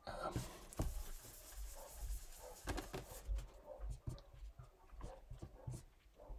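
Marker and hand on a whiteboard. For the first three seconds or so, a steady scratchy rubbing as part of the writing is wiped off. Then short, irregular ticks and scrapes as a dry-erase marker writes new figures.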